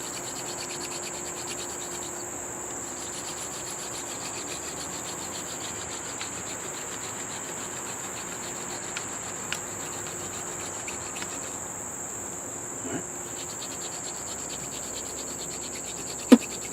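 Steady, high-pitched chorus of insects trilling, with one brief sharp sound near the end.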